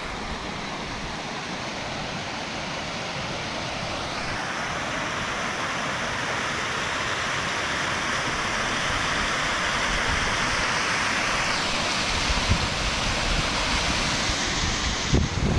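Small hill stream swollen by rain, cascading down a waterfall: a steady rush of white water. There are a few gusts of wind on the microphone near the end.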